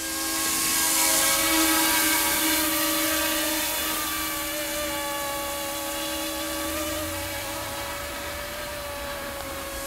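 A YXZNRC F09 Black Hawk RC helicopter's brushless direct-drive electric motors and rotors whining steadily in flight, in several even tones, loudest about a second in and slowly fading as it moves away.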